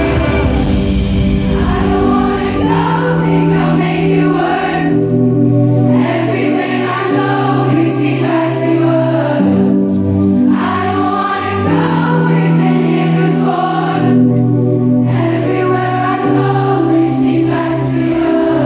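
Live pop song heard from the crowd: a woman singing over keyboard and long held bass notes that change pitch every second or two.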